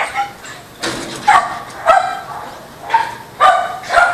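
A dog barking repeatedly in short, high-pitched barks, about seven of them at uneven intervals.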